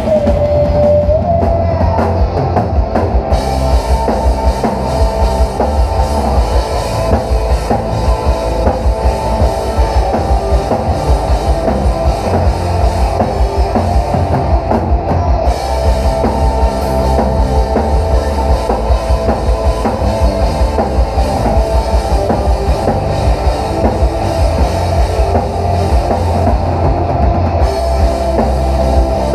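Rock band playing live in an instrumental passage: electric guitar, bass guitar and drum kit with a steady beat. A held high note bends up about a second in.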